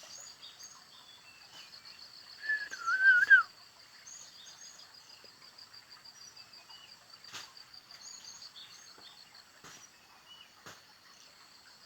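Small birds chirping here and there over a steady, rapidly pulsing high insect trill. A loud, wavering whistle cuts in about two and a half seconds in and lasts about a second.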